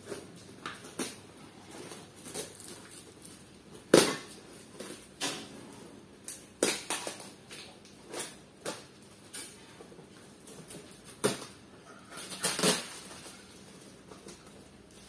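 Packing material being handled and pulled apart by hand: irregular crinkling and rustling of bubble wrap and cardboard, with a sharp knock about four seconds in and a busier stretch of crackling near the end.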